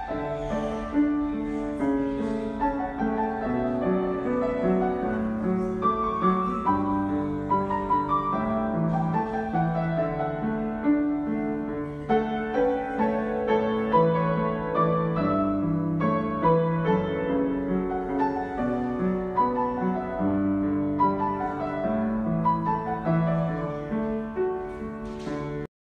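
Grand piano played solo: a flowing piece of melody over held chords, which cuts off abruptly at the very end.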